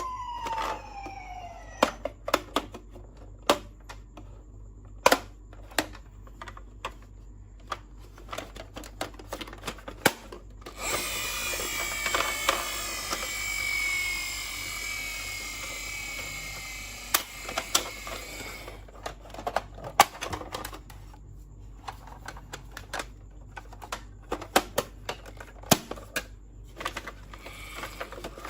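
Toy ambulance minicar: its siren glides down and stops about a second in, followed by a long run of scattered sharp clicks and taps. About eleven seconds in a whirring with slowly falling pitch starts, lasts some eight seconds, and then the clicks return.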